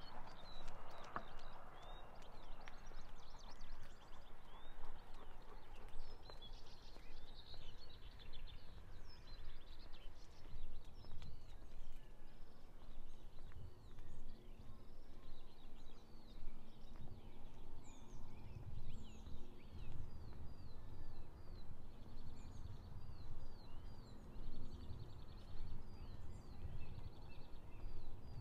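Small songbirds singing, with many quick chirps and short down-slurred notes repeating throughout and growing busier about halfway through, over a steady low rumble.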